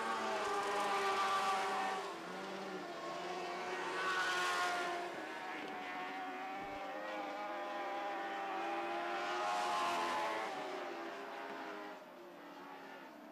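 Lightning sprint cars with Suzuki GSX-R 1000 motorcycle engines racing on a dirt oval, the high-revving engine note rising and falling through the laps. It swells loudest about a second in, at about four and a half seconds and at about ten seconds, then drops away near the end.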